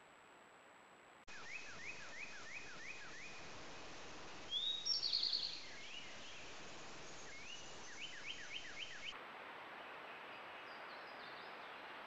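Songbirds singing over faint outdoor hiss: two runs of quickly repeated whistled notes, with a brief, louder, higher-pitched song between them about four seconds in. Fainter high notes follow near the end, and the background hiss jumps abruptly about a second in and again around nine seconds.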